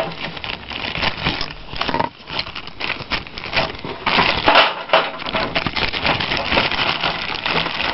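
Clear plastic zip-top bag crinkling and rustling as it is handled right at the microphone, a dense run of quick, irregular crackles.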